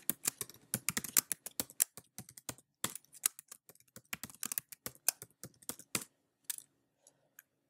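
Computer keyboard typing: rapid runs of keystrokes for about six seconds, then a few isolated clicks near the end. This is a new password being typed and then typed again to confirm it at a command-line prompt.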